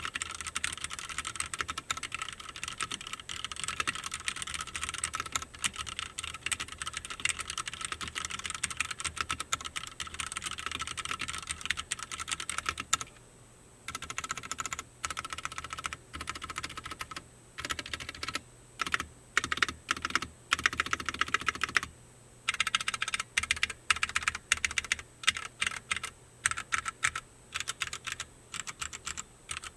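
Cherry MX Board 3.0S TKL mechanical keyboard with Cherry MX Red linear switches being typed on: rapid continuous typing for about the first thirteen seconds, then after a short pause, shorter bursts and separate keystrokes with gaps between them.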